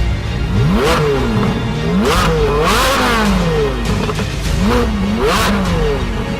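Ferrari 458 Speciale's flat-plane V8 through a Fi valvetronic exhaust, revved in a series of quick blips, its pitch rising and falling about five times. Background music plays underneath.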